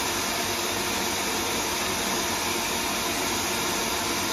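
Stand mixer motor running steadily at speed, its wire whisk beating egg whites into meringue in a stainless steel bowl.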